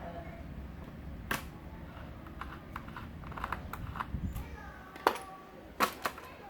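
Plastic clips of a laptop's bottom cover popping loose as the panel is pried off: an irregular series of sharp clicks and snaps, the loudest about a second in and twice near the end.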